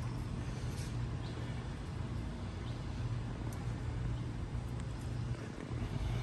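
A steady low hum, like a running engine or road traffic, with a few faint clicks over it.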